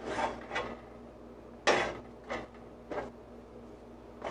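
A utensil scraping and clinking against a small stainless steel saucepan as coconut milk is stirred on the stove: a handful of short scrapes, spaced about half a second to a second apart.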